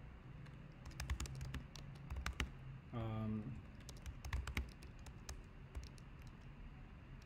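Typing on a computer keyboard: quick runs of key clicks about a second in and again about four seconds in, with pauses between.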